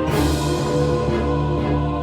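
Orchestral-style music of held, sustained chords; a new chord enters with a bright swell right at the start.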